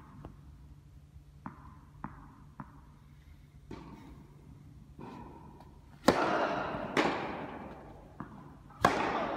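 Tennis balls struck by rackets during a groundstroke rally, sharp pops echoing in a large indoor hall. Light ball bounces and taps in the first half, then loud racket hits about six seconds in, again a second later, and just before the end.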